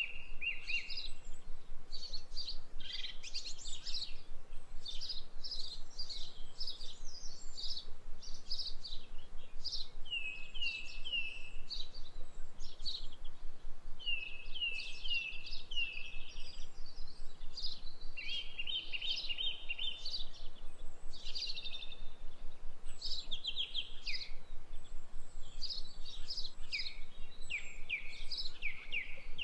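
Small birds chirping and singing: a continuous run of short, high calls and quick little trills, several birds overlapping.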